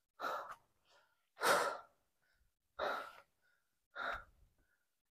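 A person breathing hard, four heavy breaths a little over a second apart, from the exertion of climbing a steep mountain trail.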